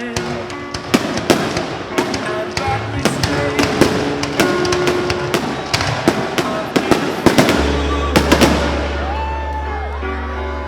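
Fireworks going off in quick succession, a string of sharp bangs and crackles, over music with a steady held bass note in its last few seconds.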